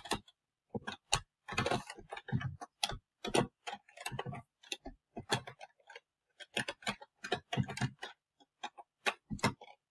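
Typing on a computer keyboard: quick, irregular key clicks, several a second, with a couple of short pauses, as a function is entered into graphing software.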